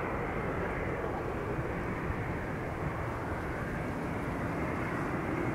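Jet aircraft engine running steadily on the ground: an even rushing drone that holds the same pitch and level throughout.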